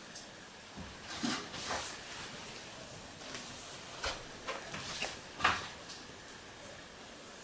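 Hands working a herb mix into a raw rabbit. Scattered soft rustles and taps, the loudest about five and a half seconds in.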